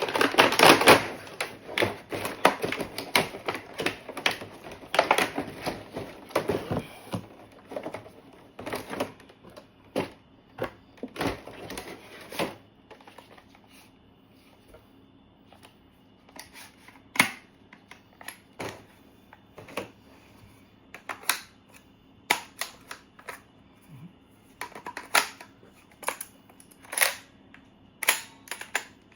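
FJS HK416D electric gel blaster being test-fired on an 11-volt battery. It fires rapid clicking bursts for about the first twelve seconds, then single shots every second or two.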